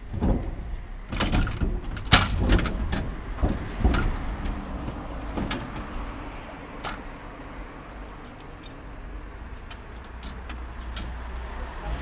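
Tram couplers being joined by hand between two tram cars: sharp metal clanks and knocks as the coupler heads and hose fittings come together, thickest in the first few seconds and then thinning to scattered ticks, over a low steady hum.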